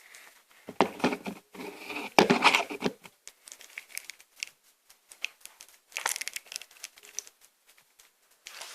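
Plastic crinkling and rustling with small knocks as slime-making supplies, a glue bottle among them, are handled and opened. It is loudest and busiest in the first three seconds, then thins to scattered clicks with another burst of crinkling about six seconds in.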